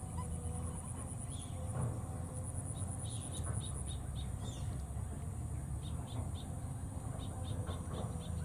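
Steady high-pitched insect buzzing, with several quick runs of four or five short high chirps, over a low rumble.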